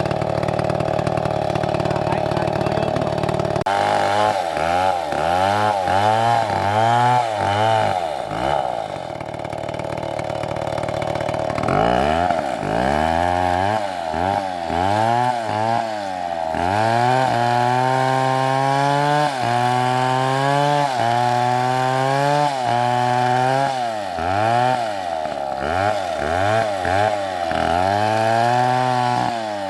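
STIHL chainsaw cutting through a thick log of red wood. The engine's pitch sags and recovers about once a second as the chain bites into the cut, with a steadier stretch of running about a third of the way in.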